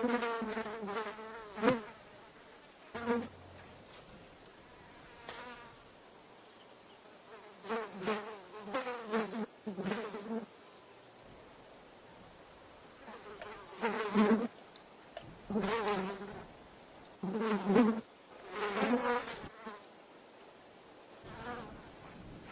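A fly buzzing in repeated close passes, each a drone a second or two long whose pitch wavers up and down as it moves, with quieter gaps between passes.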